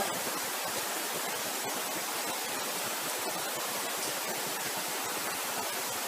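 Steady hiss of background noise with no distinct sound over it.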